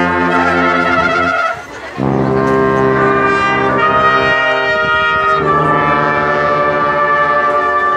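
A brass-like horn sounded in long, steady held notes. One note breaks off about one and a half seconds in; after a short gap a long note is held and then changes pitch about halfway through.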